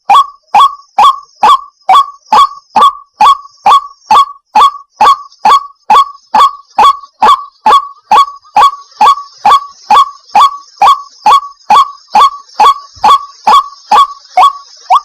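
White-breasted waterhen calling: a loud, monotonous series of short, evenly spaced notes, about two and a half a second.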